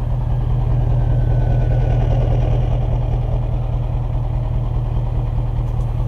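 Scania V8 diesel truck engine idling, heard at its large flared exhaust tip: a steady low rumble that swells slightly about two seconds in.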